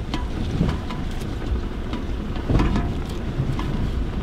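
Toyota Hilux crawling up a rough, rocky track in four-wheel drive: a steady low engine and tyre rumble with scattered knocks and scrapes as stones and overhanging brush hit the truck, one louder knock about two and a half seconds in.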